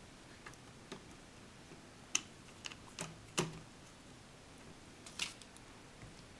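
Irregular light clicks and taps of small plastic and metal laptop parts being handled while the screen assembly is screwed back together: about seven separate sharp ticks, the loudest near the middle.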